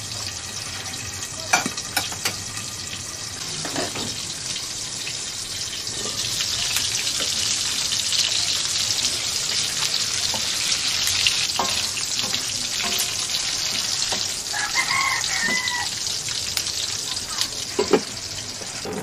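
Pork pieces sizzling as they fry in oil in a wok. The sizzle gets louder about six seconds in as the glass lid comes off, and a spatula clinks as the pieces are turned. A sharp clink near the end as the lid goes back on, and a short high-pitched call about fifteen seconds in.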